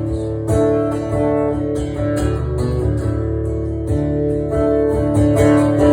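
Acoustic guitar strumming chords, with no voice, in the instrumental stretch between sung lines of a live song.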